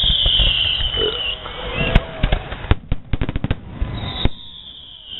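Fireworks going off: a high whistle that falls slowly in pitch, a sharp bang about two seconds in, then a quick run of crackling bangs, and another falling whistle near the end.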